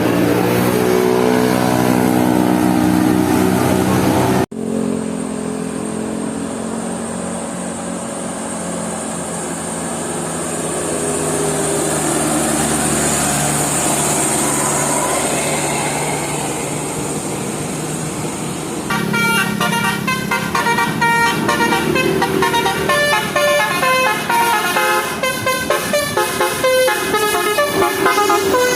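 Basuri telolet multi-tone bus horn: a held chord of several tones for about four seconds that cuts off abruptly, then a long stretch of steady noise without the horn, then the horn again near the end playing a fast run of short, changing notes.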